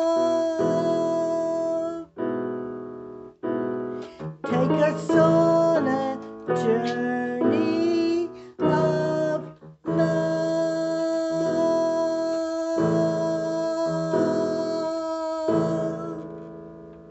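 Female solo voice singing the closing phrases of a song over piano-style keyboard accompaniment. The music ends on a long held chord that fades away near the end.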